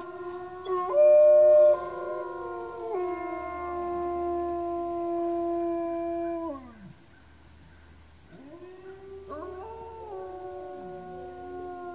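Gray wolves howling, more than one voice at once in long, steady held notes at different pitches, with a brief louder, higher note about a second in. The howls fade out about seven seconds in and start up again about two seconds later.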